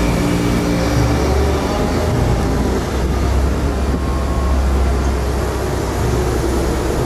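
Vintage HTM PCC tram passing close by on street track: a steady, loud rumble of wheels on rails and running gear, with a faint whine in it.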